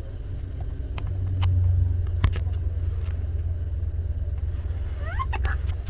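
Low, steady rumble of a vehicle, swelling briefly about one and a half seconds in. A few scattered clicks, and short rising chirps near the end.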